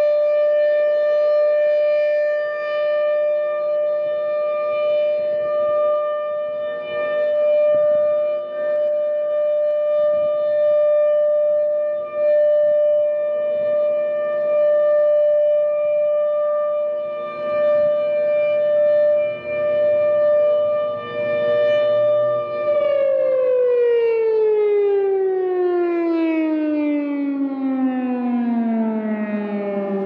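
Federal Signal Thunderbolt 1000 outdoor warning siren sounding a loud steady tone at full speed during a test, its loudness swelling and dipping. About 23 seconds in it winds down, the pitch falling steadily.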